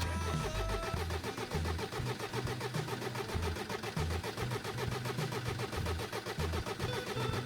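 Mercedes Sprinter 208 CDI's four-cylinder common-rail diesel being turned over on the starter motor without firing, a fast even cranking rhythm with starter whine, the camshaft sensor unplugged so it cannot start during the injector leak-off test. The cranking stops near the end.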